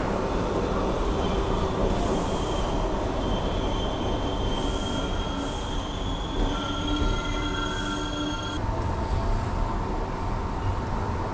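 New York City subway train running through a tunnel, heard from inside the car: a steady rumble of wheels on rail, with a high wheel squeal of several steady tones that starts about three seconds in and cuts off suddenly some five seconds later.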